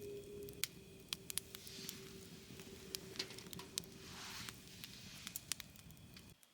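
Wood fire crackling: irregular sharp pops over a low rumble, with a faint steady ringing tone fading out in the first few seconds. The sound cuts off abruptly near the end.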